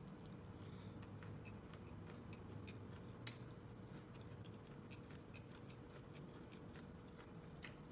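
Faint, irregular crisp clicks of teeth biting kernels off an ear of corn on the cob, with chewing, over a low steady hum. The sharpest clicks come about three seconds in and near the end.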